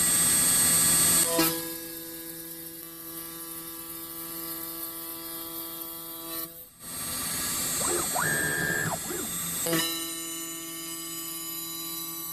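CNC router's spindle running with a steady whine while a slot-cutting router bit cuts a slot into the edge of a UHMW plastic plate. The cut is loudest and noisiest for about the first second. Past the middle, a short machine tone rises in pitch, holds, then falls.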